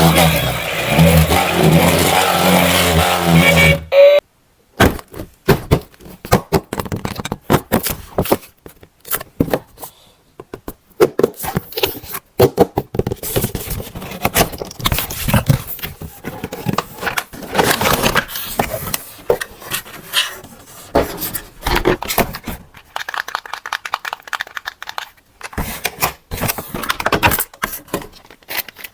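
A few seconds of loud music that cuts off suddenly. Then a long run of irregular scrapes, clicks and knocks, typical of a toy and its plastic and cardboard packaging being handled and unpacked.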